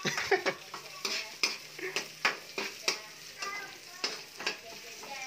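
Metal ladle scraping and clinking against a wok about twice a second, stirring onion, garlic and ginger that sizzle steadily in hot oil.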